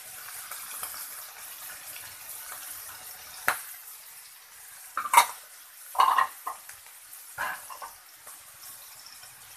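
Peas, chicken and potato frying in oil in a wok, a steady soft sizzle. A few sharp clicks and knocks come in the middle, the loudest at about five and six seconds in.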